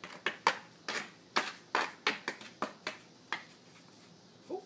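Hockey stick blade clacking against a small ball and the concrete as it is stickhandled: a quick, irregular run of sharp clacks that stops about three and a half seconds in.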